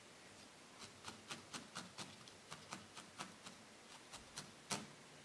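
Multi-needle felting tool stabbing repeatedly into wool: a run of faint, quick ticks, about four a second, starting about a second in, with one louder tick near the end.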